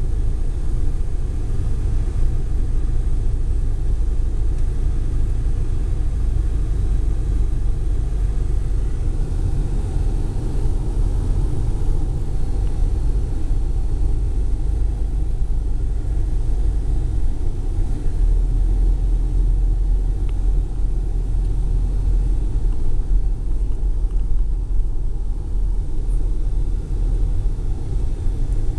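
A vehicle driving along an unpaved road, heard from inside the cabin: a steady low rumble of engine and tyres.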